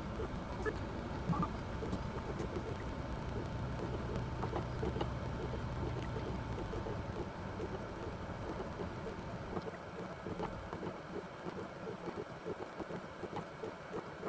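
Benchtop robotic blacksmithing machine running: a steady low machine hum that cuts off about two-thirds of the way through, over continuous crackling and scattered light clicks.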